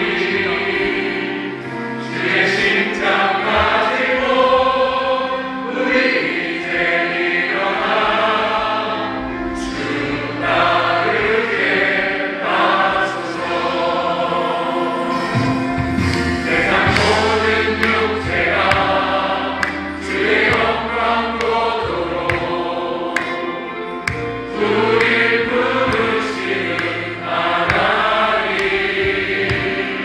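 A worship team singing a Korean praise song into microphones, joined by a large congregation, over accompaniment that holds long low notes.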